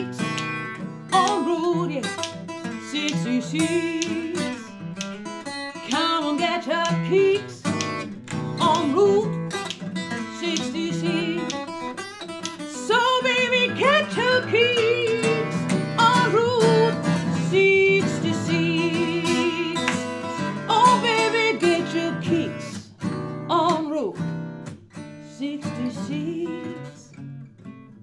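Acoustic guitar strummed and picked, accompanying a woman singing with a wavering, gliding voice.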